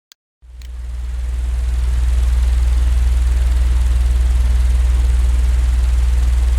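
A constant low droning hum like an idling engine, with a steady hiss over it. It fades in after a moment of silence and a small click: a steady masking-noise track.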